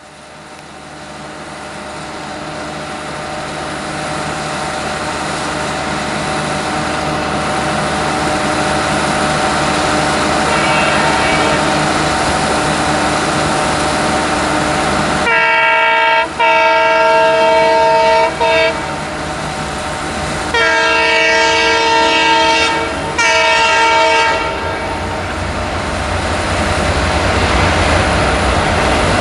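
Twin ALCO diesel locomotives, a WDM-3A and a WDM-2, approach at speed, their engines growing steadily louder. About halfway through the locomotive horn sounds twice, each long blast with a brief break in it, and heavier rumble builds near the end as the train nears.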